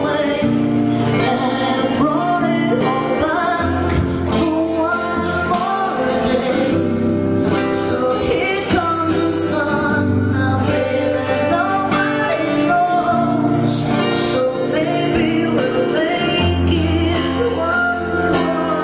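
A woman singing live to her own acoustic guitar, the voice sliding between held notes over steady strummed chords.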